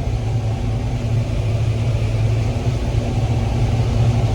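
Combine harvester running under way, a steady low drone.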